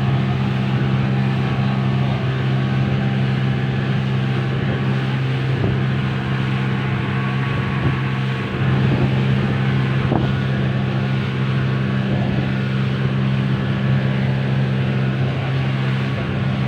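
A boat's engine running steadily at cruising speed, heard on board, with a constant low hum under the rush of wind and water.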